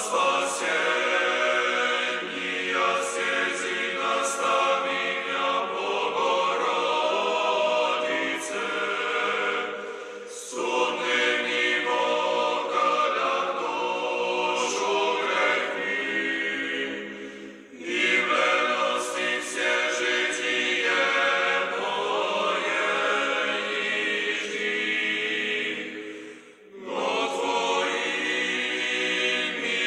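Background music: a choir singing a slow, chant-like piece in long phrases, broken by three brief pauses.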